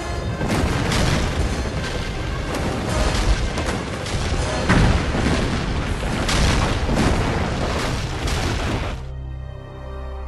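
Film sound effects of rumbling and crashing rock as a cave collapses in clouds of dust, heard over music. The crashing stops suddenly about nine seconds in, leaving only the music.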